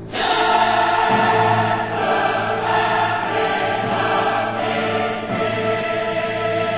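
Background choral music: a choir holding sustained chords, coming in suddenly and loudly at the start.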